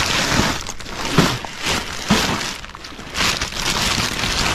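Black plastic garbage bag crinkling and crackling as it is gripped and pulled open by hand, in uneven surges.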